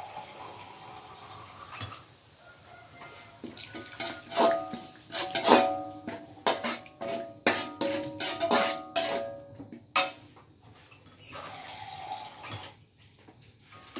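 Metal spatula stirring spice paste and water in an aluminium wok, knocking and scraping against the pan so that it rings. The clanking is quiet at first, comes thick and fast for several seconds through the middle, then stops.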